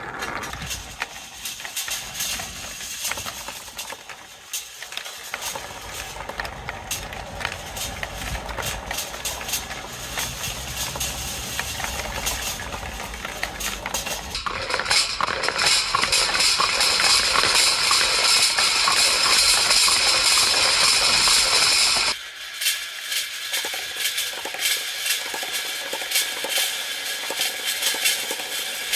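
Balls and marbles rolling along plastic and metal marble-run track, with a steady rolling rumble and many small clicks and knocks as they hit the track and each other. From about halfway in, a louder, hissing stretch of rolling lasts some eight seconds and then cuts off suddenly.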